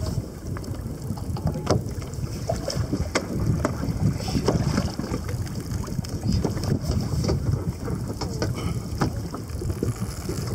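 Wind buffeting the microphone and choppy sea water against a kayak's hull, a steady low rumble broken by irregular sharp knocks and slaps.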